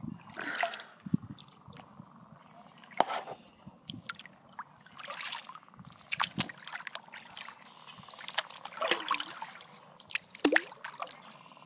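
Kayak paddle dipping into the water in intermittent strokes, splashing, with water dripping and trickling off the blade between them.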